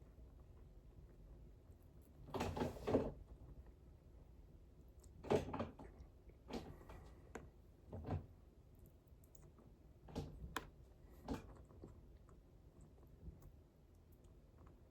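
Close-miked eating sounds: chewing, with short clicks and mouth smacks at irregular intervals, the loudest cluster coming about two to three seconds in.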